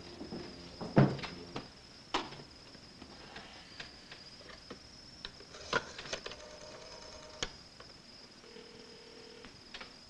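Black rotary-dial desk telephone being used: a sharp clack about a second in as the handset is picked up, then scattered clicks of handling and dialing, and a short steady tone in the earpiece near the end. Crickets keep up a steady high trill underneath.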